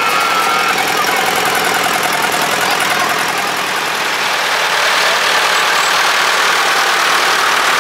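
Antique farm tractor engines running steadily at low speed as the tractors roll past: first an orange Allis-Chalmers, then a red Massey Ferguson.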